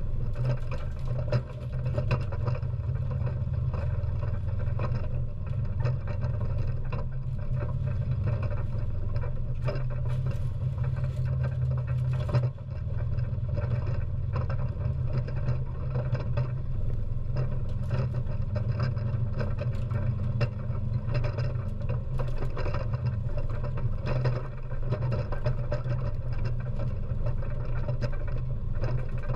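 ATV engine running steadily as the quad drives over rough landfill ground, a low, constant rumble. Scattered clicks and knocks of jolting and debris sound over it.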